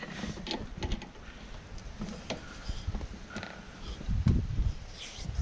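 Scattered light clicks and knocks of hand handling at a hood gas-strut mounting, with a dull thump about four seconds in.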